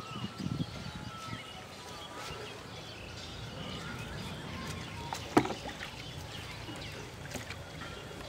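Small birds chirping over a steady low outdoor background, with a few low thumps in the first second. About five seconds in comes a single sharp knock from a plastic bucket as a caught fish goes into it.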